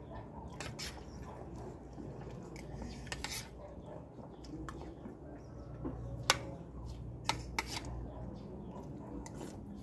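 Metal spoon clinking and scraping against a dinner plate while rice and chicken are scooped up. There are a few sharp clinks, the loudest about six seconds in.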